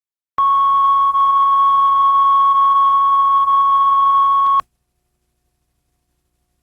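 Steady 1 kHz line-up test tone at the head of a videotape, holding one pitch at a constant level for about four seconds and then cutting off abruptly.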